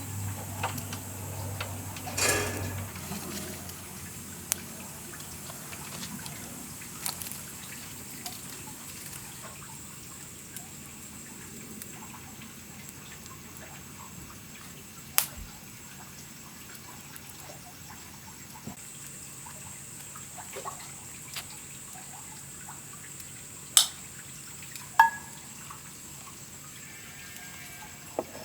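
Green plantain pieces frying gently in coconut oil: a soft steady sizzle with scattered small crackles, and a few sharp clicks in the second half.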